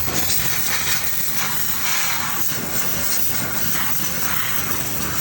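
Pressure washer jet spraying water into a car's engine bay: a steady hiss that swells and fades slightly as the spray moves, washing off grease.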